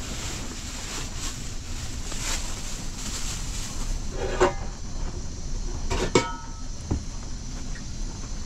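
A few sharp knocks and clatters, the loudest a pair about six seconds in, over a steady low rumble.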